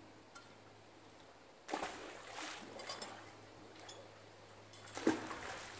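Water splashing with clicks, starting suddenly about two seconds in and again near the end, as a magnet-fishing rope is hauled up and the hooked object slips free back into the canal.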